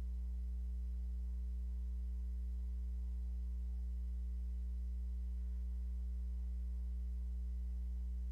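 Steady low electrical mains hum, unchanging, with nothing else heard.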